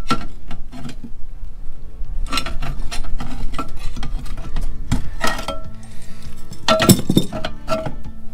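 Irregular metal clinks and knocks of hand tools working on a corroded boat seat frame, the loudest about seven seconds in, over background music.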